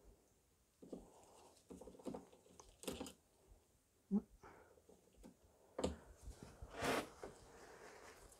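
Faint rustling and small clicks from gloved hands handling hotend parts and tools on a workbench, with a sharper click about four seconds in and a longer rustle near seven seconds.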